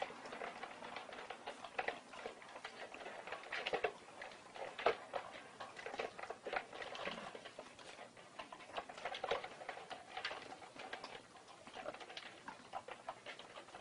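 Irregular light clicks and taps, several a second.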